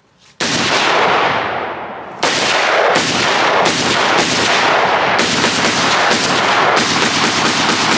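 7-inch-barrel 5.56 AR pistol firing: one shot, a pause of nearly two seconds, then a string of shots that speeds up into rapid fire near the end. Each report is loud and echoes long.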